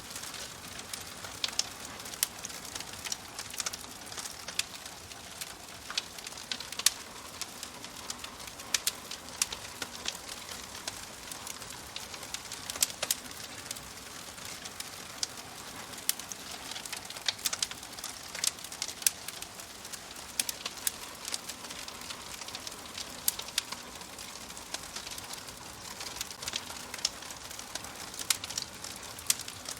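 Crackling fire: a steady hiss of burning with frequent sharp, irregular pops and snaps.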